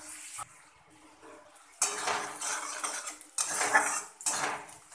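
Metal spatula scraping and stirring against an aluminium kadai as chopped onions fry in hot oil: a quiet start, then several scraping strokes from about two seconds in.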